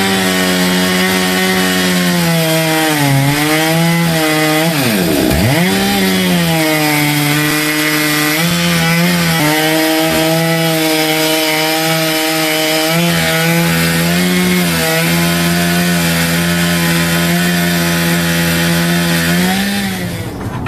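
Two-stroke chainsaw on an Alaskan chainsaw mill running at full throttle, ripping lengthwise through a log. The engine speed dips briefly about three seconds in and drops almost to idle a couple of seconds later before picking back up, then holds steady until it falls off near the end.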